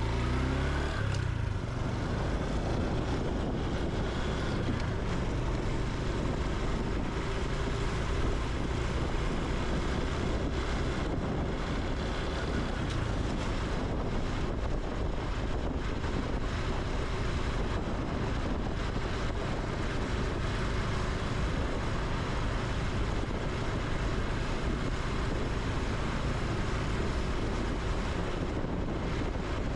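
Honda Super Cub C125's single-cylinder four-stroke engine running while riding, its note rising in the first second, with steady wind noise on the microphone.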